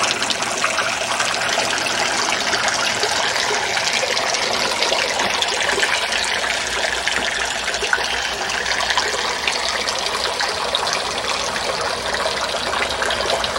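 Three-tier garden fountain running, water trickling and splashing steadily as it spills from bowl to bowl.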